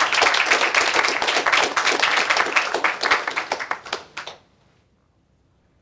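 Audience applauding: many hands clapping for about four seconds, thinning out and stopping.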